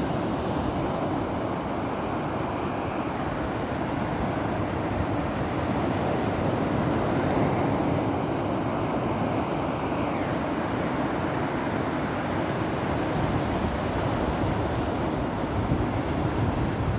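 Rough sea: waves surging and breaking in a steady wash, with wind buffeting the microphone.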